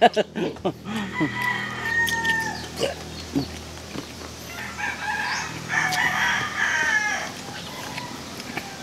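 Rooster crowing twice: one long crow about a second in, and a second long crow about five seconds in.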